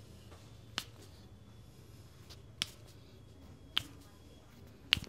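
Four sharp cracks, spaced about one to two seconds apart and loudest near the end, from joints being cracked during a chiropractic adjustment, over a low steady room hum.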